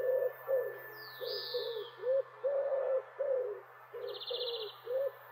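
Swans calling: a run of short, bending calls, about two a second, with a small bird chirping once about a second in and trilling briefly near four seconds.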